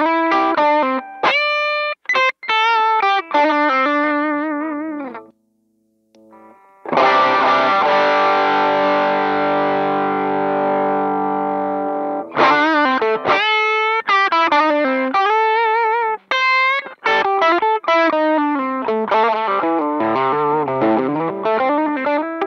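Overdriven electric guitar. Quick single-note lines are followed by a break of about a second around five seconds in. Then a strummed chord is left to ring for about five seconds, and fast single-note melodic lines follow it. The later part is played through the Demonfx DualGun, a King Tone Duellist clone, with its Drive-A channel engaged.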